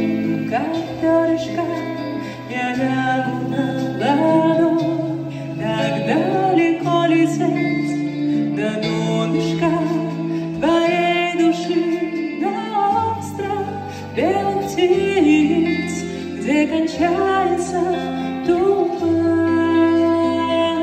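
A woman singing live into a microphone with electric keyboard accompaniment, amplified through PA speakers in a small room. A deeper bass line comes in about two-thirds of the way through.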